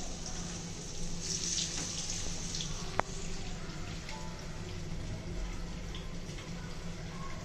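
Hot oil sizzling in a shallow frying pan as pieces of marinated fish are laid in to shallow-fry, the sizzle flaring up about a second in. A single sharp click comes about three seconds in.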